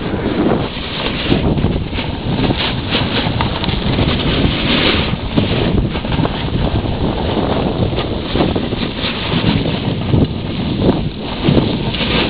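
Wind buffeting the microphone, mixed with the scraping hiss of a snowboard sliding over packed snow, rising and falling as the rider moves.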